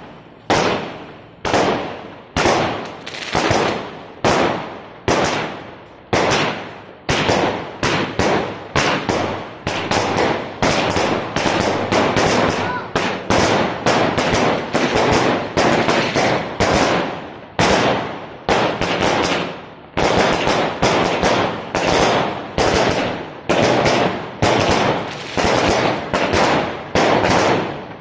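Fireworks going off in a long rapid series of aerial shells, sharp bangs about one to two a second, each with an echoing tail. In the middle the bangs come almost back to back.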